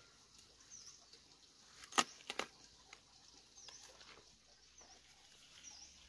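A knife cutting through a cabbage stem: one sharp, crisp crack about two seconds in, then a couple of softer snaps as the head comes free.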